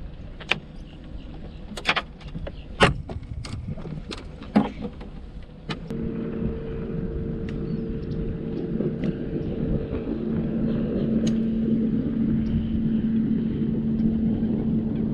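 A few sharp knocks and clatters, then about six seconds in a boat's motor starts and runs steadily with a low hum, getting slowly louder.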